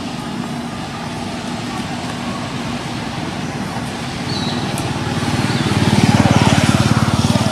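A motor vehicle engine running steadily close by, getting louder about five seconds in as it nears, with a few short high chirps above it.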